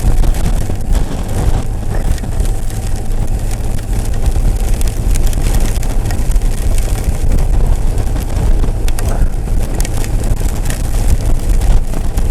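Loud wind buffeting a helmet microphone while riding a motorcycle at road speed, with small ice pellets ticking against the helmet and camera here and there.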